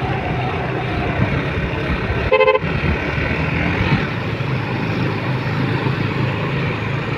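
Motorcycle engine running steadily under way, with wind rush, and one short horn beep about two and a half seconds in.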